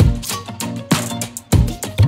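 Background music with a steady beat, strong drum hits about twice a second.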